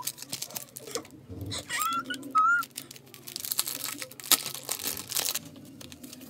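Hands handling plastic and foam packaging, which crinkles and rustles with small clicks. There is a longer stretch of dense crinkling a little past the middle. Around two seconds in come a few brief high-pitched rising-and-falling notes.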